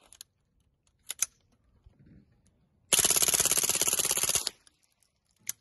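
Full-auto .22 LR fitted with a 3D-printed suppressor firing one rapid burst of about a second and a half, a fast even string of shots. A few sharp clicks come before the burst and one after it.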